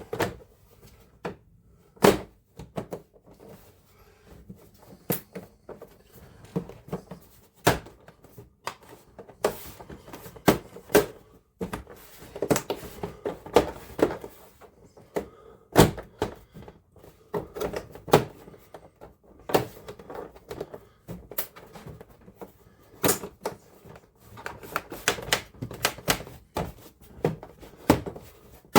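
Irregular clicks and knocks from handling and putting back together a computer monitor's plastic parts, some sharp and loud, spread at uneven intervals.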